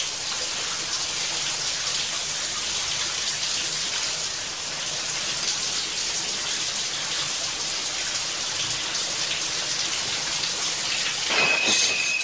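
A steady, even hiss of water, with a brief sharper rush near the end.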